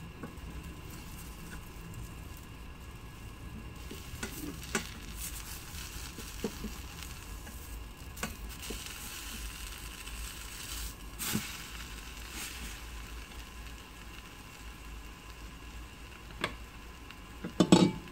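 An egg and cha-om (Senegalia pennata) omelet sizzling steadily in a stainless-steel frying pan, with a few light clicks. A short loud clatter near the end, as the glass pan lid is handled.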